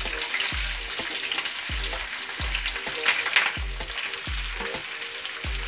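Chopped green capsicum sizzling as it drops into hot oil in a frying pan, a steady hiss of frying that grows louder in bursts about three seconds in as more pieces are pushed in.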